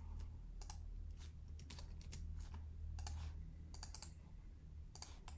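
Computer keyboard keystrokes and mouse clicks, irregular and unhurried, over a steady low hum.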